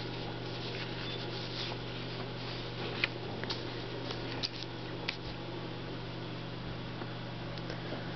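Room tone: a steady low hum, with a few faint short clicks and rustles about three, four and a half and five seconds in.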